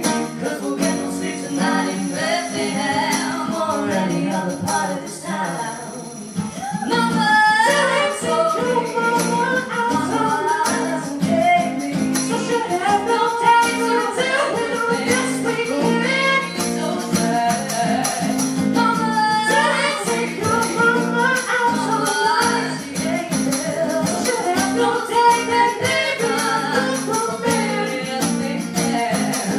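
Live acoustic pop song: a man and a woman singing together over a strummed acoustic guitar. The music drops briefly about six seconds in, then comes back fuller.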